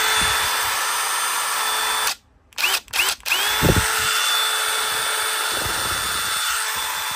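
DeWalt DCF887 brushless impact driver run free with no bit and no load, giving a steady motor whine with no hammering. It runs for about two seconds and stops, then gives two quick trigger blips. It then spins up again with a short rising whine and runs steadily.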